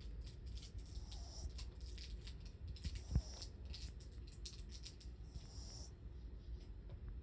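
A sleeping Papillon–Japanese Chin mix dog snoring softly: a fine crackling, rattling breath sound that comes in groups every couple of seconds. A single low thump about three seconds in.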